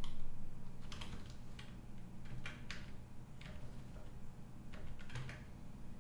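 Computer keyboard and mouse clicks: irregular single taps, some in quick pairs, over a low steady hum.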